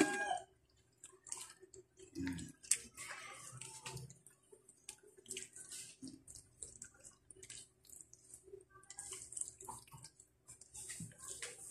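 Spatula stirring and folding pasta through a thick creamy sauce in a pan: wet squelching and sloshing with irregular light scrapes and taps against the pan.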